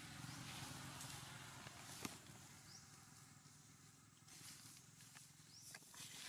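Faint rustling of dry leaf litter as macaques move over it, with one sharp snap about two seconds in. A few short, faint, high rising chirps come near the end.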